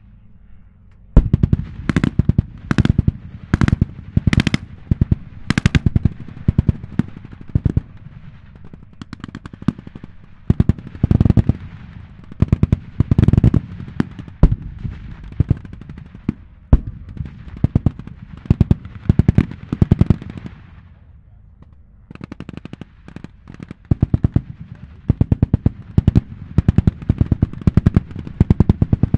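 Turret-mounted machine guns on Sherman tanks firing blanks in repeated short bursts of rapid shots, with one especially loud shot about a second in and a brief pause about three quarters of the way through.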